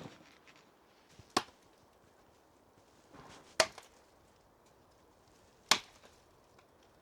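Three sharp chopping blows, evenly spaced about two seconds apart, with a brief rustle just before the second.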